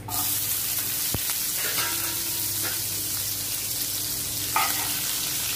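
Chopped onions sizzling steadily in hot oil, just tipped into a frying pan already holding spluttered mustard seeds, fenugreek and curry leaves. A single knock comes about a second in, and a metal spoon clatters against the pan near the end as the onions are stirred.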